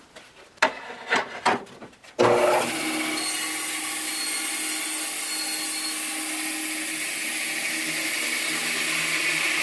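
A few knocks of the plywood sled being set on the saw table, then a Grizzly 17-inch bandsaw starts abruptly about two seconds in and runs steadily as the sled is pushed into the blade to cut its kerf, the hiss of the cut growing near the end.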